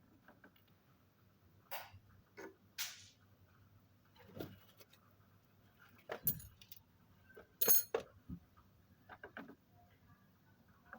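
Scattered metallic clinks and knocks of tools and engine parts being handled and set down, about eight separate sharp sounds with the loudest two in the second half.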